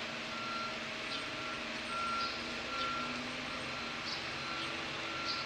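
A ship's engines run with a steady hum as the ferry pulls away from the pier. Over them, a high electronic beep repeats about every half second to second, irregular in length.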